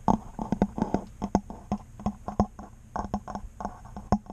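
A rapid, irregular run of sharp clicks and knocks, several a second, each with a short low thud.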